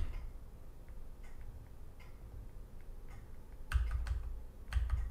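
Light clicks from a computer desk as the mouse and keys are worked during editing, faint through most of the stretch, with two louder clicks and a low thump near the end.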